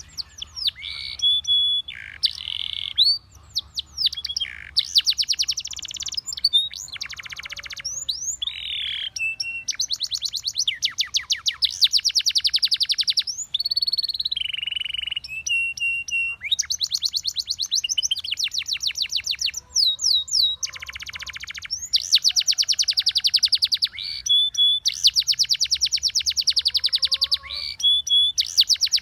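Spanish Timbrado canary singing a long song of fast rattling trills, each held for a second or two, broken up by short whistled notes and quick pitch glides.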